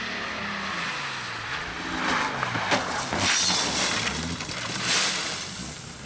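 BMW race car's engine revving up and down in pitch as the car slides off the wet track onto grass and gravel. From about two seconds in to about five seconds, a gravelly clatter of stones and debris spraying against the car rises over the engine, with sharp cracks as it hits.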